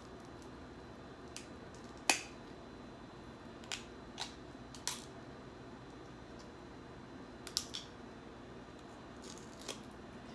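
Snow crab leg shells cracking and snapping as they are broken apart by hand: one sharp crack about two seconds in, then several smaller cracks and clicks.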